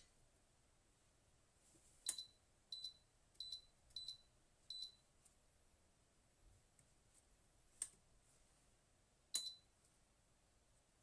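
Electric temperature-control kettle's control panel beeping as its buttons are pressed: five short high beeps in quick succession about two seconds in, a lone click later, and one more beep near the end.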